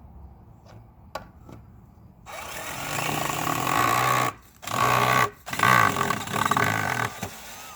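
Power drill whirring as it backs a screw out of a wooden playset frame. It starts a little over two seconds in, stops briefly twice, and runs until near the end.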